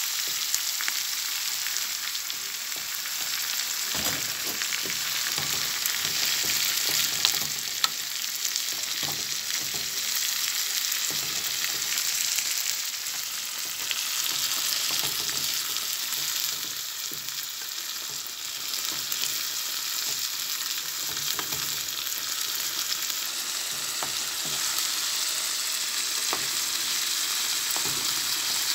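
Fava beans frying in a pan with a steady high sizzle, stirred with a wooden spatula that scrapes and knocks against the pan now and then.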